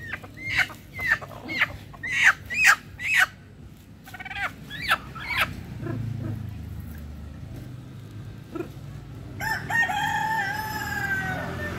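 Chickens squawking in a quick series of short, sharp calls while being handled and tied, then a rooster crowing once: one long call of about two seconds near the end.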